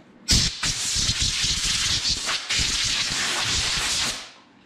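Compressed-air blow gun hissing in a long blast, with a short break about two and a half seconds in, blowing the routing chips off a freshly CNC-cut PVC template.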